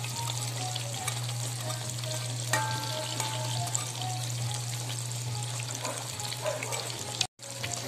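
Breaded cheese sticks frying in hot cooking oil in a pan: a steady sizzle full of small crackling pops, with one sharp knock about two and a half seconds in. The sound cuts out for a moment near the end.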